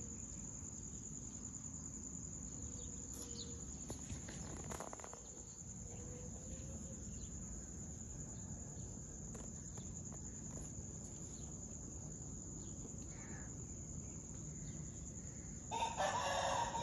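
A rooster crowing once, loudly, near the end, over a steady high-pitched insect drone and low outdoor background noise.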